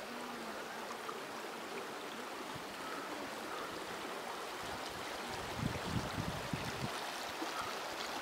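Shalmala river water flowing over its rocky bed, a steady rushing. A few low bumps come in the second half.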